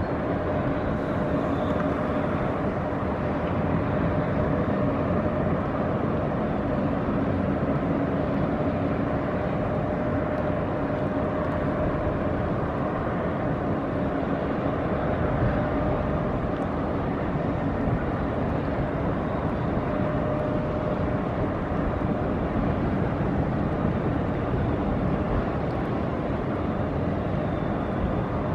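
Inland motor cargo ship's diesel engine running steadily as the vessel passes close by: a constant drone with a faint steady hum in it.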